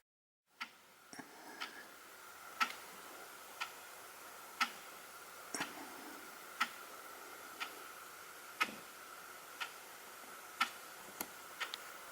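Inexpensive quartz alarm clock ticking once a second, the ticks alternating louder and softer.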